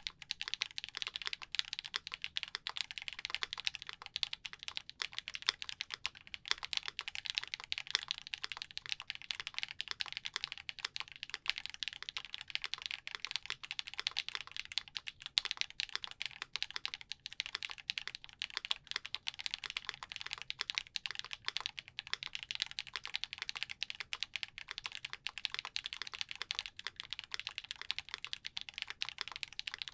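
Continuous fast typing on a gasket-mounted 65% custom mechanical keyboard (Iskar prototype) with a polycarbonate plate, lubed KTT Halu Halo linear switches and GMK keycaps: a dense, even stream of clicky keystrokes.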